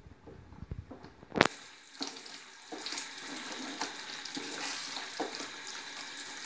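Thick jackfruit preserve (chakka varatti), cooked down with jaggery and ghee, bubbling and sizzling in a pan while a spoon stirs and scrapes through it. There is a sharp click about a second and a half in, then a steady sizzle with many small pops.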